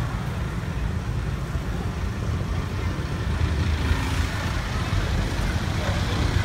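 Steady low rumble of road traffic and vehicle noise on a busy city street.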